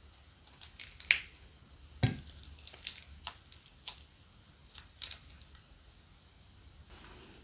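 Sharp clicks and snaps from handling slime-making materials, about seven over five seconds, the loudest about two seconds in, then a soft faint rustle near the end.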